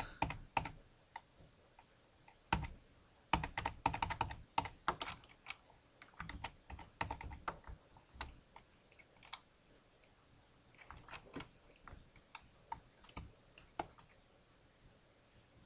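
Computer keyboard keys tapped in short, irregular flurries of quick keystrokes with pauses between.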